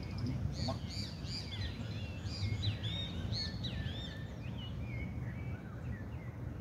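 Birds chirping: a dense run of short rising-and-falling notes from about half a second in until near the end, over a steady low rumble.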